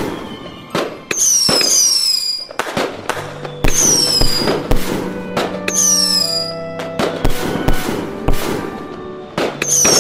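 Daytime fireworks going off in a rapid series of loud bangs, with whistling shells giving high falling whistles every second or two.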